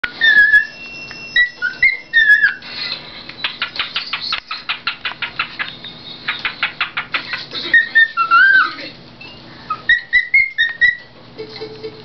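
Male cockatiel singing a familiar-sounding learned tune: clear whistled notes with rising and falling glides, then a rapid run of short chirps at about five a second, then more whistled phrases. The owners guess the tune comes from a TV commercial.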